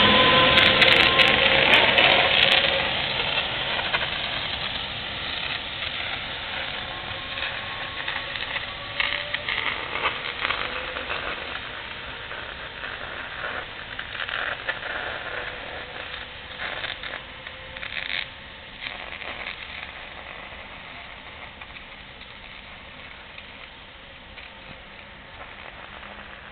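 A regional passenger train with double-deck carriages pulling out and moving away, its running noise fading steadily into the distance. A faint whine rises slowly in pitch over the first several seconds, and scattered clicks and knocks from the wheels on the rails come through in the middle.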